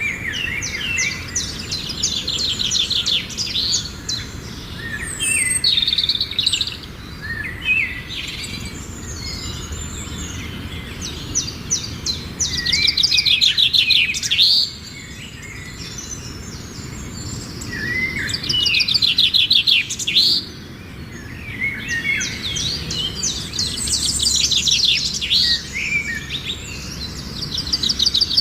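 A flock of many small birds chirping and chattering together at their roost, a dense chorus of rapid overlapping trills. It swells louder in waves, three times, then eases back.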